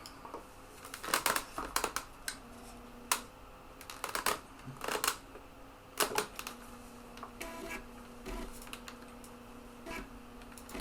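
3.5-inch floppy drive (TEAC FD-235F) clicking irregularly as its head steps and seeks while trying to read a disk, with a short run of rapid ticks about three quarters of the way through, over a faint steady hum. The disk is not loading, which the owner puts down to a faulty disk.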